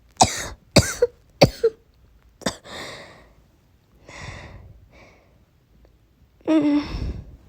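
A woman coughing, as from a cold: three quick coughs in the first second and a half and another at about two and a half seconds. Breaths follow between them, then a longer voiced cough near the end.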